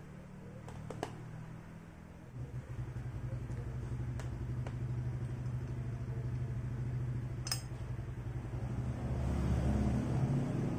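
A steady low mechanical hum that swells from about two seconds in, with a few light metallic clicks as a rocker arm shaft is fitted into a Yamaha Mio cylinder head by hand.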